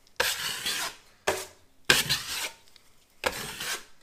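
Steel drywall knife scraping across the wet joint compound of a drywall patch in four strokes, each starting sharply and fading. The strokes wipe off the excess mud and smooth the patch flat.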